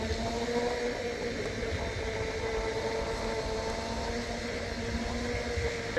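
Segway personal transporter's electric drive whining at a steady pitch while riding, over a low rumble of wind and tyres on pavement.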